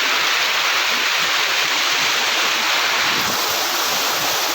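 Waterfall: water falling and rushing in a loud, steady roar of white noise.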